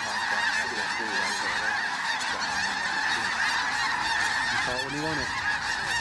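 A huge flock of snow geese, blue-phase birds among them, calling overhead: a dense, unbroken din of high yelping calls, with a deeper single call standing out near the end.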